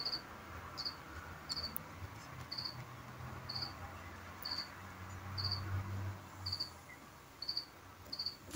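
A cricket chirping faintly, one short high chirp about every second, evenly spaced. A faint low hum comes in about halfway through.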